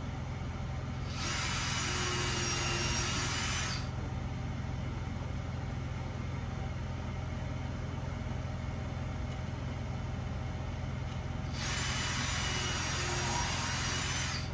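Power drill running in two bursts of about two and a half to three seconds each, a high motor whine over a steady low hum.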